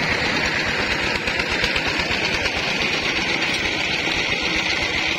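Single-cylinder diesel engine of a công nông farm truck running steadily, with a fast even beat and a steady high hiss above it.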